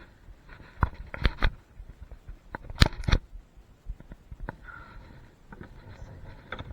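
Handling noise on a kayak while a landed fish is being shown and measured: several sharp knocks and clatters in the first three seconds, then fainter rustling and ticks.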